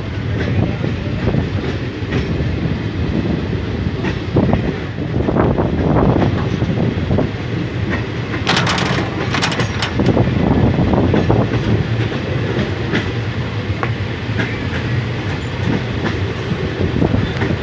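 A train running over the rails, heard from on board: a steady rumble of the wheels with scattered clicks from the track. About halfway through there is a brief, sharper, higher noise.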